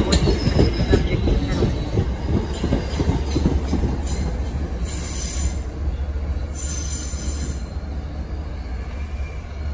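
MBTA commuter rail train's coaches rolling past, wheels knocking over rail joints for the first few seconds. After that a steady low rumble slowly fades as the train draws away.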